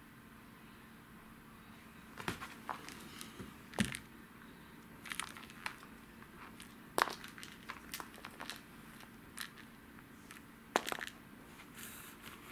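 Light taps, scratches and rustles, about a dozen at irregular intervals starting about two seconds in, as a Thai cat bats and claws at a toy mouse on a string on a wooden floor.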